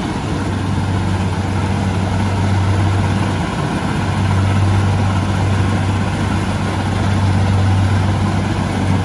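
Kubota DC60 combine harvester running steadily, a constant low engine hum over a wash of machinery noise.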